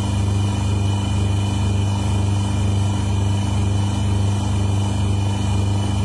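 A motor running steadily with an unchanging low hum.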